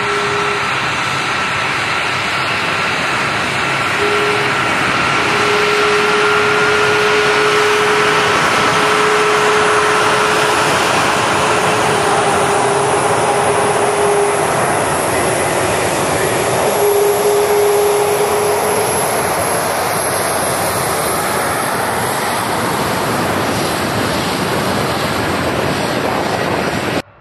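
Boeing KC-135 Stratotanker's four CFM F108 turbofan engines running as the tanker taxis past close by, a steady jet rush with a faint whine. It swells a little as the aircraft goes by and eases slightly near the end.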